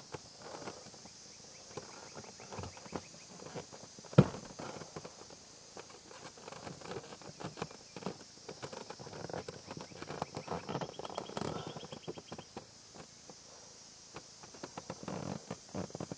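Irregular light taps, knocks and shuffling, with one sharp, much louder knock about four seconds in.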